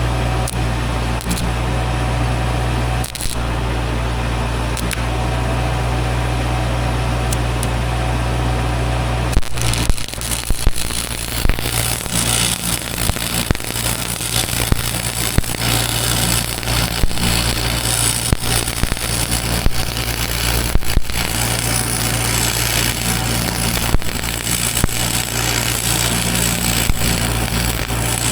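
An engine runs steadily; about ten seconds in, the crackle of arc welding starts, with irregular sharp pops over the engine drone.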